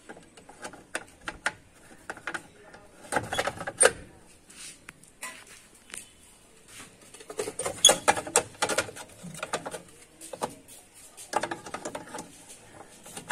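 Irregular clusters of clicks, taps and scrapes from washing-machine parts being handled and fitted back into place during reassembly, with short pauses between bursts.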